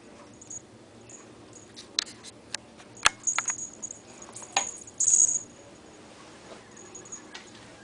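Two ferrets play-wrestling on a tile floor. Scattered sharp clicks and taps come from claws and bodies hitting the tiles, mostly in the middle of the stretch, with the loudest single knock about three seconds in. A small collar bell jingles on and off, with a brief louder jingle just after five seconds.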